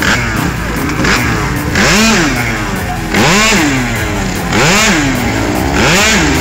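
Tuned two-stroke scooter engine revved in a series of throttle blips, each a quick rise and fall in pitch, two small ones followed by four stronger ones about a second and a half apart.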